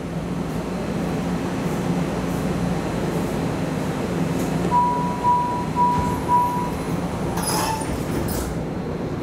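MARTA rapid-transit railcar heard from inside the car: a steady low rumble and motor hum of the running train. About five seconds in come four short, high beeps, and a brief hiss follows a couple of seconds later.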